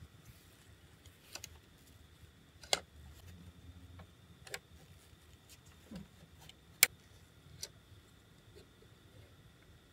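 Scattered sharp plastic clicks and taps as the hull hatch and small parts of a Chogokin Thousand Sunny model ship are handled and fitted, about five distinct clicks, the loudest about seven seconds in.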